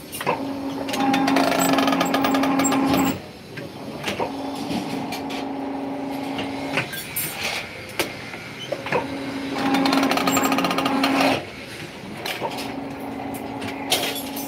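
Electric rebar bending machine running in two cycles as its turntable bends a bundle of steel bars into stirrups: each cycle a louder stretch of motor and gear hum lasting about two and a half seconds, then a quieter run, with short metallic clanks of bars being shifted in between.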